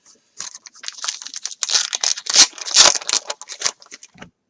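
Plastic wrapping of baseball card packs being handled, crinkled and torn: a dense run of irregular crackles, loudest between about two and a half and three seconds in.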